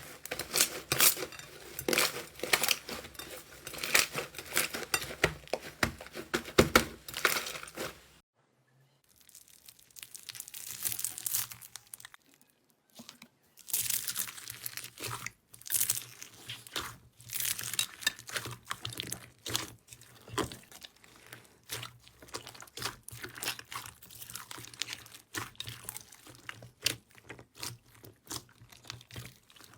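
Slime being squeezed and pressed by hand, giving dense crackling and crunching clicks. The sound drops away after about eight seconds and is weaker for a few seconds, then the crackling resumes over a faint low hum.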